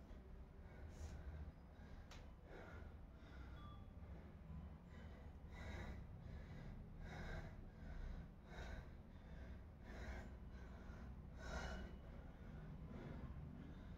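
A person breathing hard and rhythmically, with a sharp, noisy breath about every second and a half.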